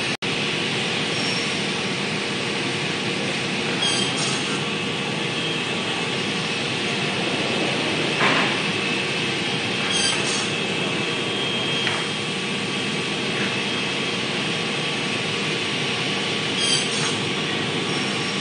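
CNC wood cross-cut saw running with its workshop machinery, making steady loud noise. A few short, sharp cutting strokes break through every few seconds as the boards are fed through.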